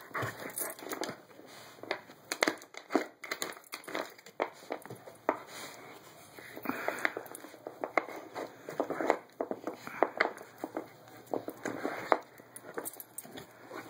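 A dog working a wooden treat-puzzle board with its nose and paws: irregular wooden clicks and knocks as sliders and cork-topped pegs are nudged and shifted, with some rustling between them.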